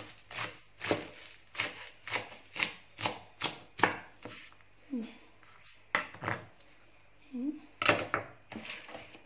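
Kitchen knife chopping lettuce on a wooden cutting board, steady strokes about two a second for the first four seconds. After that come a few scattered knocks, the loudest near the end.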